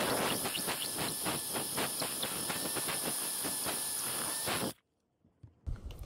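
Cordless drill with a large bit boring through a plastic template and the gunnel behind it, a steady grinding with a fast rhythmic chatter. It cuts off suddenly about five seconds in, and a few faint handling knocks follow.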